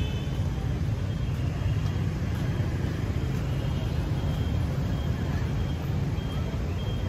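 Steady low rumble of busy outdoor city-street ambience, with traffic noise and no distinct events.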